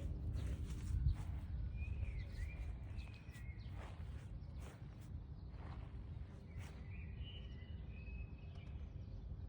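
Outdoor background noise: a steady low rumble with scattered soft clicks, and faint high chirps twice, near two seconds and again around seven to eight seconds.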